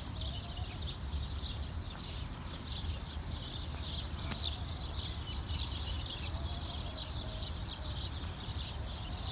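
A chorus of many birds chirping, dense short high chirps throughout, over a steady low rumble.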